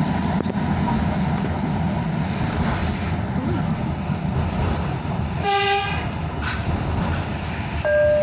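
Tyne and Wear Metro train running, a steady rumble of wheels and motors heard from inside the carriage. About five and a half seconds in the train's horn gives one short toot, and near the end a steady tone begins.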